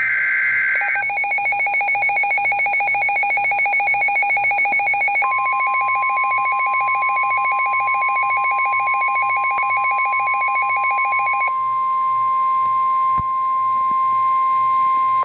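NOAA Weather Radio alert signals. It opens with the tail of a SAME digital header burst, a warbling data screech, followed by rapid, even electronic beeping, typical of a weather radio receiver's own alarm. About five seconds in, the broadcast's steady warning alarm tone starts; the beeping stops about eleven seconds in, and the steady tone holds alone until it cuts off abruptly.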